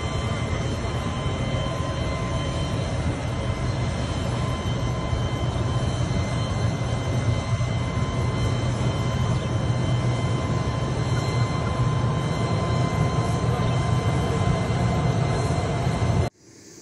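Jet aircraft engines running: a steady low rumble with a thin constant whine, cutting off abruptly near the end.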